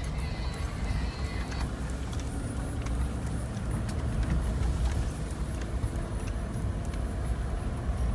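Steady low rumble of a small off-road SUV driving slowly, engine and tyres running at an even pace.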